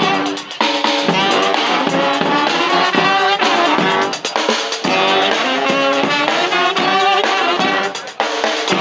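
Street brass band playing: several horns sounding together over a drum beat, with brief breaks about half a second in and just before the end.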